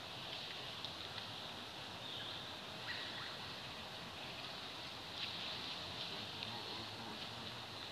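Outdoor ambience among trees: an even, high-pitched hiss with a few faint chirps and ticks scattered through it.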